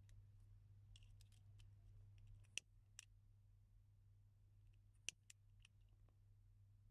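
Near silence with a low steady hum: fingers working braided fishing line make faint ticks, and two sharp clicks come about two and a half seconds apart.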